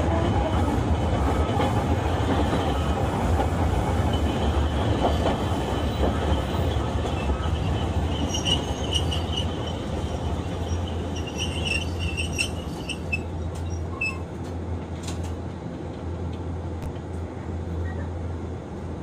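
Hiroshima Electric Railway 1900-series streetcar running on its rails with a steady low rumble. The wheels squeal briefly twice around the middle, and the running noise gradually grows quieter in the second half.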